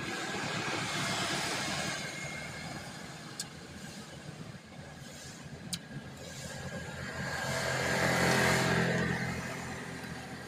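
Traffic passing on a road: a vehicle swells and fades about a second in, then a motorbike engine passes, loudest about eight seconds in, and fades.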